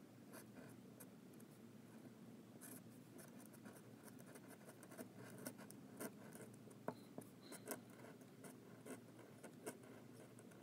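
A Nikko G steel flex nib on a modified Jinhao pen scratching faintly across paper as calligraphy strokes are written, in small irregular scratches and ticks.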